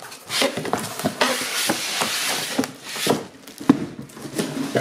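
Clear plastic film wrapped around a new printer crinkling and rustling as it is gripped and pulled, followed by a few sharp clicks in the second half.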